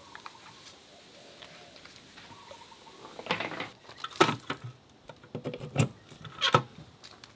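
Sharp plastic clicks and rattles as the clear weatherproof cover of an outdoor electrical outlet is flipped open and an extension cord plug is pushed into the socket. There are several separate clicks over the last four seconds, after a quiet start.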